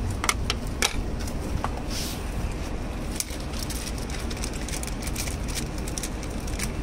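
Steady low hum of an idling engine, with a few light clicks and taps scattered through it.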